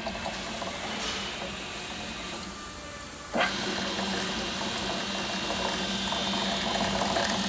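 Apach dough mixer running on test after a bearing replacement: its motor and chain drive hum steadily, sounding fine to the repairman. About three and a half seconds in, the sound jumps suddenly louder and stays there, with a steady higher whine added.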